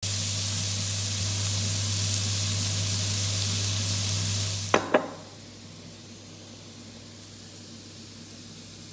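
Pumpkin cubes sizzling in oil in a frying pan: a steady, loud hiss over a low hum. Just before halfway there are two sharp clicks, and the sizzle gives way to a much fainter steady hiss.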